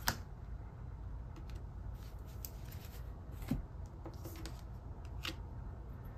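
Tarot cards being shuffled and handled: a few soft, scattered card clicks and flicks over a faint steady low hum.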